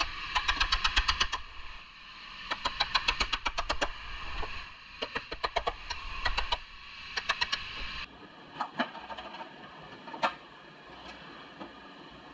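A steel hammer rapidly tapping a chisel driven between an old car rocker panel and the body's spot-welded flange, metal on metal. The taps come in runs of about a second at roughly eight to ten strikes a second, splitting the panel off and checking for missed spot welds. After about eight seconds only a few scattered single taps remain.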